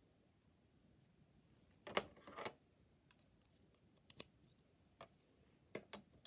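Plastic Lego Technic parts clicking and knocking as they are handled, fitted together and set down on a baseplate: a short clatter about two seconds in, then a few single sharp clicks.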